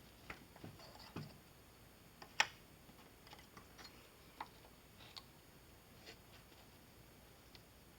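Scattered small clicks and taps from strips of thin sheet brass being handled and bent in half by hand, with one sharper click about two and a half seconds in.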